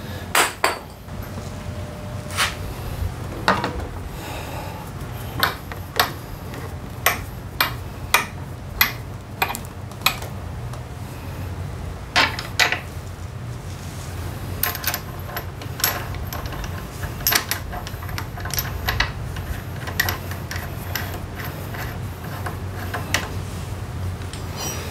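Scattered metallic clinks and knocks of hand tools and brake parts as a Honda PCX125 scooter's front brake caliper is fitted back over the disc, over a steady low hum.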